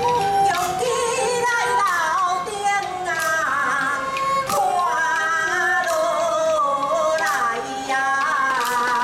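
Taiwanese opera (gezaixi) band music: a melody that slides and wavers in pitch over held instrumental notes, with sharp percussion strikes now and then.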